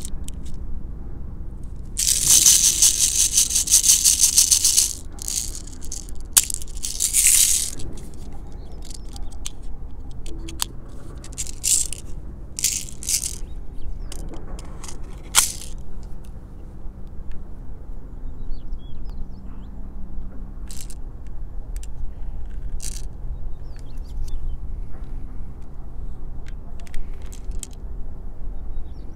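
Plastic rattling and clicking as a Toystar M1911A1 toy airsoft pistol and its magazine are handled. There is a dense rattle for a few seconds near the start, then scattered clicks as the magazine goes into the grip, with one sharp click about halfway through, and lighter clicks of the pistol's parts after that.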